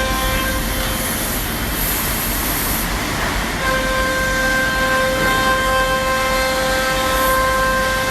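CNC router spindle running with a steady high whine over the noise of the bit cutting plywood. The whine drops away about half a second in and comes back about three and a half seconds later.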